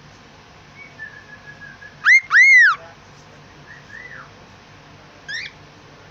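Pet bird whistling a few separate notes. The loudest is a pair of clear whistles about two seconds in, the second rising and then falling. Softer whistles follow near four and five seconds.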